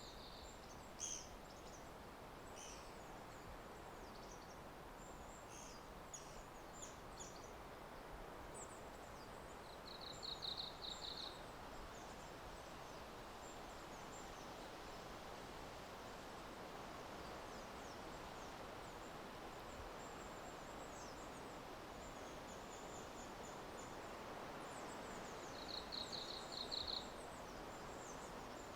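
Forest ambience: a steady low hiss of background noise with small birds calling, a short, fast high trill twice, about ten seconds in and again near the end, and faint high chirps scattered through the first half.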